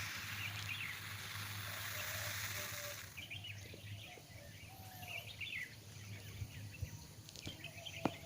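Saw-scaled viper rasping a warning by rubbing its serrated side scales together: a steady hiss that stops about three seconds in. Birds chirp after it.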